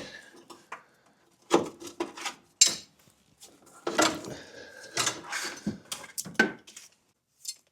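Metal transmission cooler lines and their fittings clanking and scraping as they are worked loose by hand, in a string of irregular knocks and rattles.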